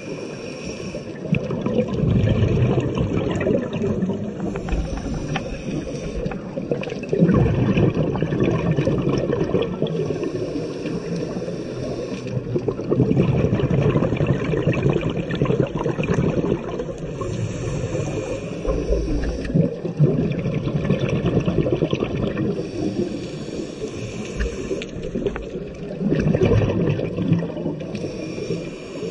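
Scuba breathing heard underwater: the hiss of a regulator on each inhale alternates with the low rumble and gurgle of exhaled bubbles, in an even cycle about every five to six seconds.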